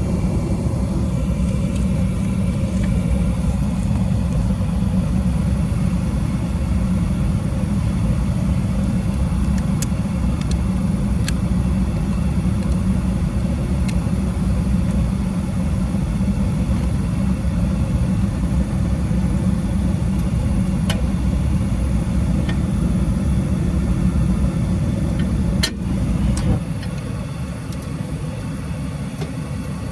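Steady low rumble of a running gas furnace on a Trane dual-fuel system, its blower and inducer moving air, with a few faint clicks. The rumble drops noticeably about 26 seconds in.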